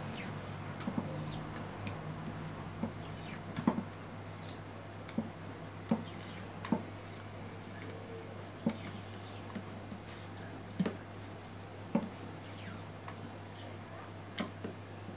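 Hands wrapping adhesive tape around metal kitchen tongs and a rod: a dozen or so scattered sharp clicks and small knocks from the tape and metal being handled, over a steady low hum.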